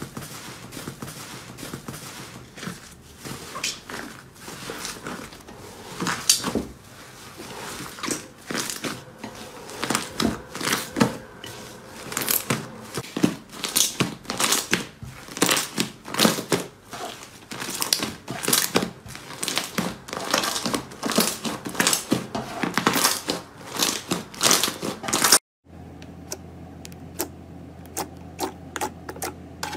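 Hands squeezing and kneading a large, air-filled fluffy slime, giving a dense run of crackling pops and clicks. About 25 seconds in the sound drops out briefly, then fingers pressing into a glittery slime give sparser, sharper clicks over a steady low hum.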